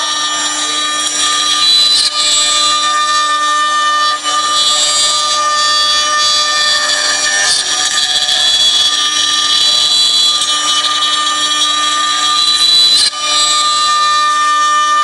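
4-axis CNC router spindle whining steadily as its bit cuts into a long wooden workpiece, with a hiss of wood being chipped away. The sound dips briefly twice.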